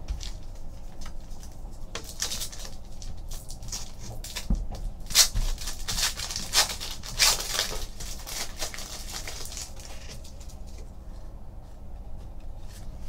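Foil trading-card pack wrapper crinkling and tearing open, a run of irregular crackles and rustles from about two seconds in until about nine seconds in, followed by the softer sound of cards being handled.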